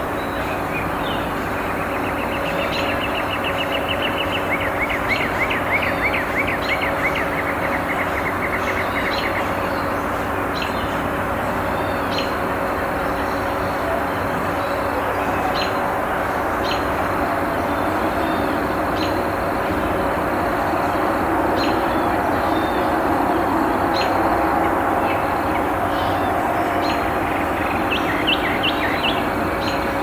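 City background noise: a steady rumble of traffic with a faint hum, and birds chirping over it, with two rapid trills in the first ten seconds and a cluster of quick chirps near the end.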